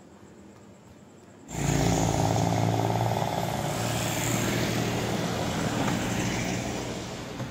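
Faint low street background, then from about a second and a half in, traffic on a city road: a vehicle engine runs close by, loudest at first and slowly fading as it passes.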